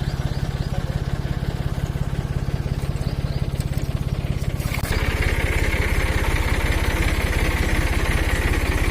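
Heavy diesel engine of earthmoving machinery running with a steady low pulse; about five seconds in it turns abruptly louder, with a high whine added.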